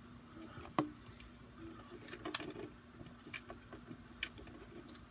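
Quiet room tone with a steady low hum and a handful of short clicks and taps, the sharpest a little under a second in.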